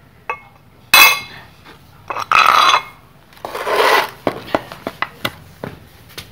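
Kitchen dishes and a spoon being handled: a loud clatter about a second in, then two stretches of scraping and a run of light clicks.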